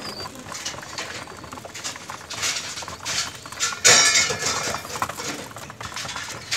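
A flock of domestic pigeons pecking grain off a hard floor: a busy patter of small taps and clicks, with a louder, noisier burst about four seconds in.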